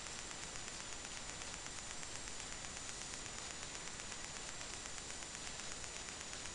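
Steady static hiss with a faint high-pitched whine: background noise of the recording, with no other sound.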